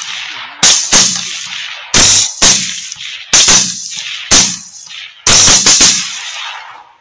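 Rapid semi-automatic rifle fire: about a dozen shots in quick pairs and strings, each crack followed by a rolling echo, the last of which fades out near the end.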